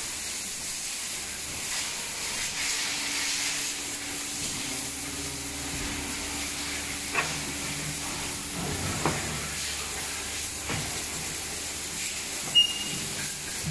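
Silicone molding press and workshop machinery: a steady hiss, with a low hum that comes in a couple of seconds in and stops about halfway. A few light clicks follow, then a sharp click with a brief ring near the end, as the press sits closed on the mould.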